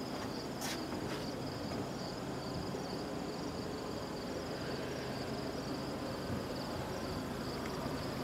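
Insects trilling steadily in the grass, a continuous high pulsing chirr, over a low steady rumble; a single click under a second in.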